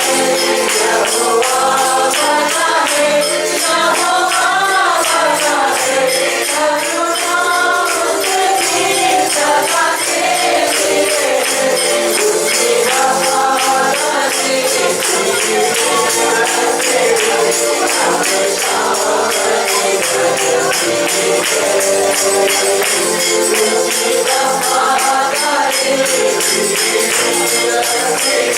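Live church worship music: a tambourine shaken in a steady, fast beat over a melody with voices singing.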